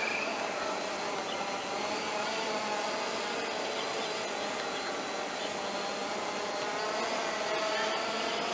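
Quadcopter drone's motors and propellers humming steadily in flight, the pitch wavering slightly as the motors adjust.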